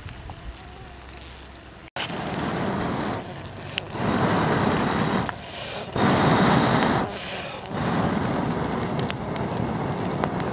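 Charcoal fire burning under roasting snails, quiet with a few faint crackles at first. About two seconds in it turns into a loud hiss and rush that swells and fades in several surges, with scattered crackling pops.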